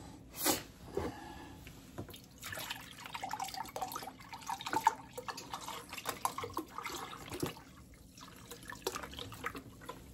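Chicken broth poured from a carton into a glass measuring cup, splashing for a few seconds in the middle, after a sharp knock about half a second in.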